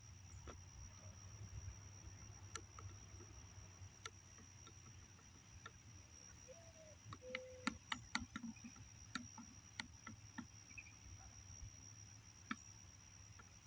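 Faint, steady high-pitched insect trill, like crickets, with a scattering of soft clicks about halfway through.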